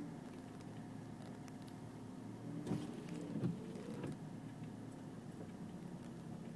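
Car engine and tyre noise heard from inside the cabin as the car drives slowly on snow, a steady hum. About three seconds in come a few knocks and a short whine, the loudest part.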